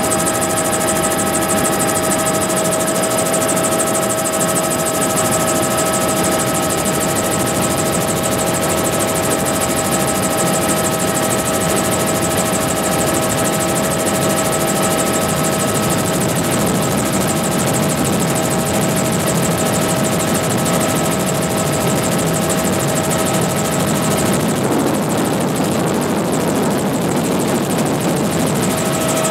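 Helicopter in flight, heard from inside the cabin: a steady drone of engine and rotor with a steady high whine on top. Near the end the whine fades for a few seconds.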